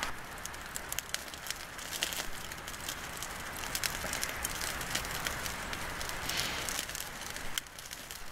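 Wood fire crackling with frequent sharp, irregular pops under chicken pieces roasting over the flames. The sound eases a little near the end.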